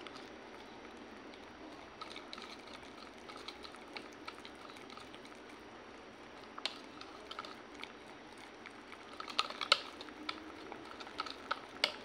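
Wire whisk stirring thick chocolate pancake batter in a plastic jug: a wet, sticky squelching, broken by irregular clicks of the wires against the jug's side. The clicks come thicker and louder near the end.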